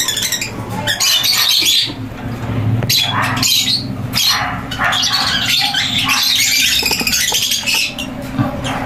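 A flock of African lovebirds chattering and squawking in a run of harsh, high, overlapping calls with brief lulls.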